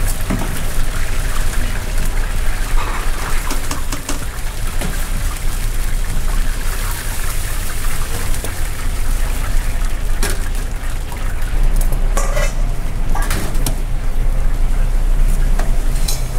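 Oil in a commercial deep fryer sizzling and bubbling as battered pieces fry, over a steady low hum. A few sharp metal clinks from the mesh skimmer and fryer basket come in the second half.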